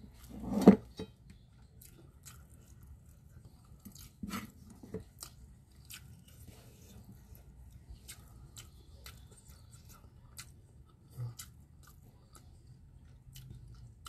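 A person chewing and eating salted fish with sambal by hand, with many soft mouth clicks and smacks. A sharp thump less than a second in is the loudest sound.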